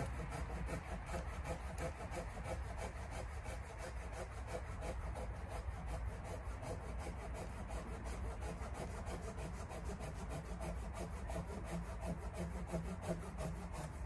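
Hand saw cutting through a dead pine branch in a quick, steady rhythm of back-and-forth strokes.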